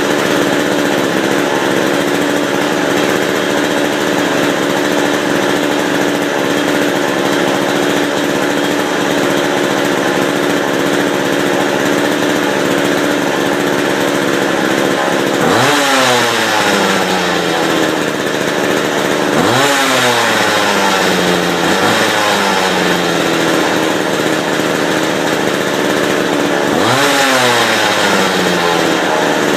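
McCulloch two-stroke chainsaw idling steadily after a cold start, then revving up three times, each rev climbing quickly and dropping back to idle over a couple of seconds.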